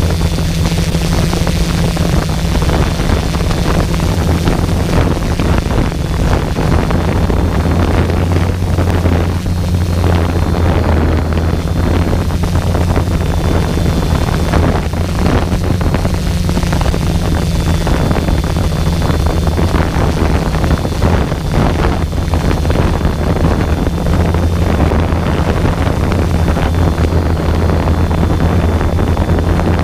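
Multirotor drone's electric motors and propellers humming steadily, with a faint high whine on top, while wind buffets the microphone.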